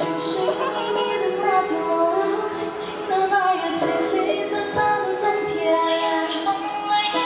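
Live concert music over a PA: a pop song's intro with held notes and a female voice singing a wordless melodic line.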